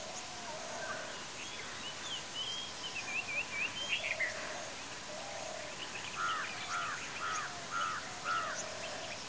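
Several wild birds calling over a steady background hiss: scattered chirps and whistles, a quick string of short slurred notes about three seconds in, and a run of five evenly spaced call notes from about six seconds.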